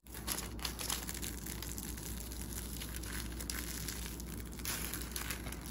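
Crisp deep-fried breadcrumb crust of a tuna bread pie crackling and crunching as the pie is torn apart by hand, a steady run of small crackles and clicks.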